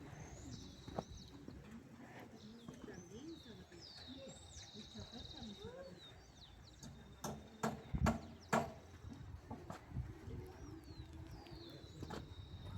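A songbird singing high whistled notes and fast trills, pausing in the middle and starting again near the end. About seven to nine seconds in come three sharp knocks, the loudest sounds here.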